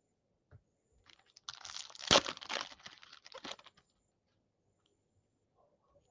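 A foil trading-card pack being torn open and crinkled, a rough crackling burst lasting about two seconds, starting a second and a half in.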